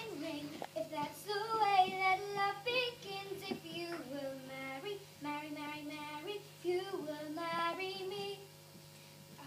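A girl singing a folk melody in held, wavering notes over a steady low hum. The singing drops away for a moment near the end.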